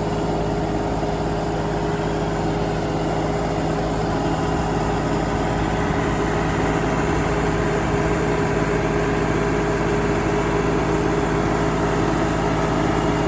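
Farm tractor engine running steadily at low revs.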